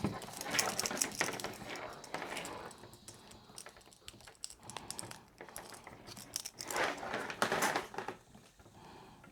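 Light irregular clicking and rattling of the fencing reel's small plastic and metal parts being handled and fitted back together, with a busier run of clicks near the end.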